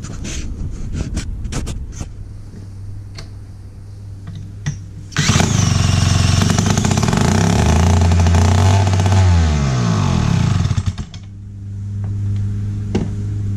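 A loud motor starts abruptly about five seconds in and runs for about six seconds. Its pitch bends and falls shortly before it cuts off suddenly.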